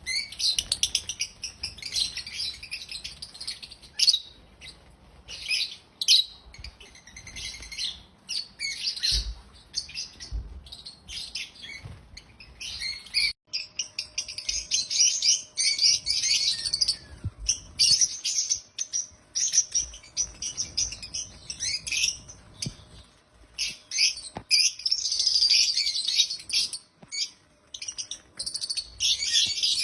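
African lovebirds chirping, a dense run of rapid, shrill high chirps in bursts with a brief break about halfway through.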